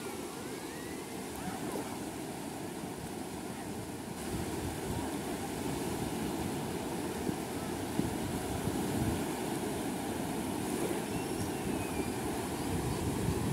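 Small sea waves lapping and washing over a sandy shoreline in the shallows, a steady wash with wind buffeting the microphone.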